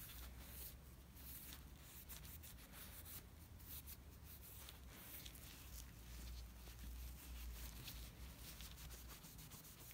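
Faint rubbing and scratching of a paper shop towel wiping the back of an engine main bearing shell clean, in many short strokes, over a low steady hum.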